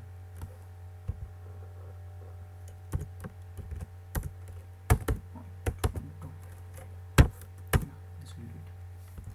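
Computer keyboard typing: irregular keystrokes, a few struck harder than the rest, over a steady low electrical hum.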